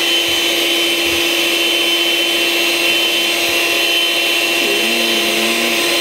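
Small electric stand mixer running steadily at one speed, beating brownie batter in its steel bowl: a constant motor hum with a high whine over it.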